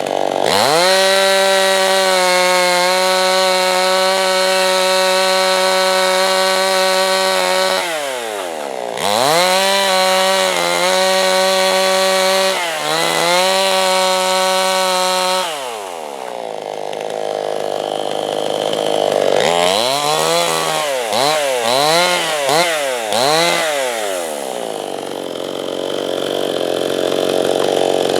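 Two-stroke chainsaw milling a slab freehand from a softwood log. The engine revs to full throttle and holds for about seven seconds, eases off, then runs at full again with a few brief dips. Past halfway it drops back and is blipped up and down about five times in quick succession before settling at a lower speed.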